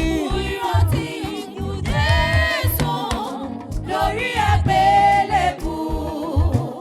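Gospel praise music: long sung vocal phrases with a wavering pitch over a band with a steady bass beat.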